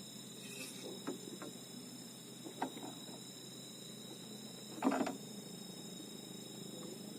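Night insects, crickets among them, keeping up a steady high-pitched chorus of several constant tones. A few brief knocks or rustles break through, the loudest about five seconds in.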